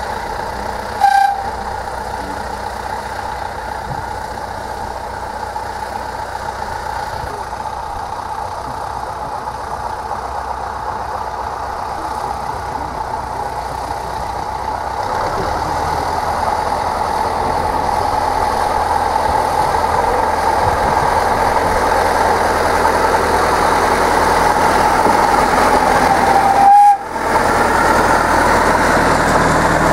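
A narrow-gauge field-railway train running, the noise getting louder as a small diesel locomotive on the parallel track comes alongside. There is a short horn toot about a second in and another near the end.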